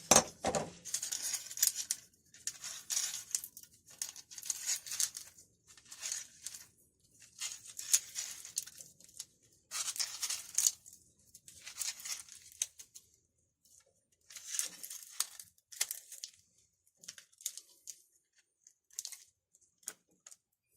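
Recoil spring being worked into a chainsaw's starter housing by hand: repeated short bouts of scraping and rustling, with a sharp knock at the start, thinning to a few light clicks near the end.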